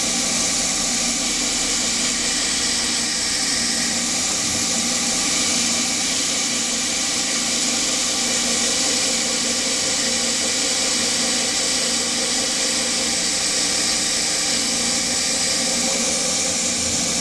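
Steady hiss of a Noga air mister's jet blowing on the cut while a Hercus PC200 CNC lathe turns 6061 aluminium, with a steady machine hum beneath.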